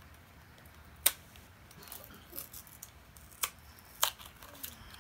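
Small cardboard toy blind box being handled and pried open by hand: a few sharp clicks and light crackles of cardboard, the loudest about a second in.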